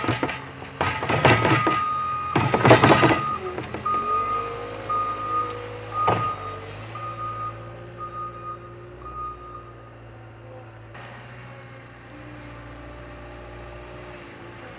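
Caterpillar skid-steer loader at work: snow pours from its bucket onto the pile in a few loud rushes during the first three seconds. Its backup alarm then beeps at an even pace, a little under two beeps a second, and stops about two-thirds of the way in, while the diesel engine runs steadily underneath.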